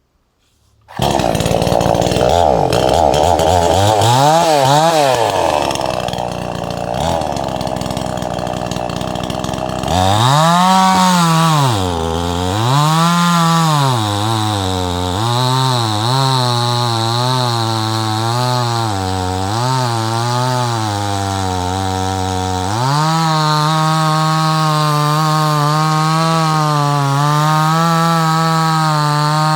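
Two-stroke chainsaw engine starting up about a second in and running. Its revs rise and fall in a series of throttle blips, then hold at a higher steady speed for the last several seconds.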